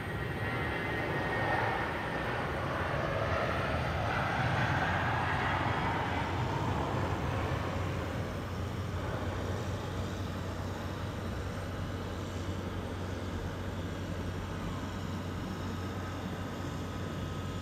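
Airbus A320-family airliner's jet engines at takeoff power as it rolls past, lifts off and climbs away. A whine falls in pitch as it passes, loudest a few seconds in, then eases into a steady low rumble.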